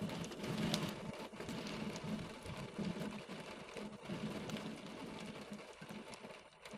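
Steady rain pattering, with many quick drop taps close by.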